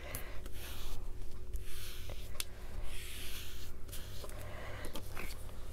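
Soft, repeated rubbing strokes as a paint-smeared surface is wiped clean, with a few light clicks.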